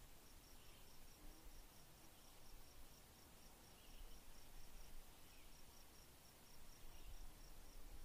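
Near silence with faint, steady insect chirping: a high pulse repeating about four times a second.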